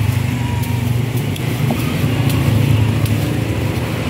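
Steady low rumble of a motor vehicle engine running, with faint ticks of a knife slicing a crystal guava.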